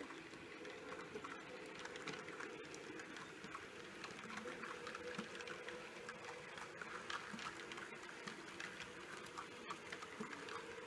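H0-scale model train, a steam locomotive hauling passenger coaches, running along the track: a steady small-motor whir with many light clicks from the wheels over the rail joints.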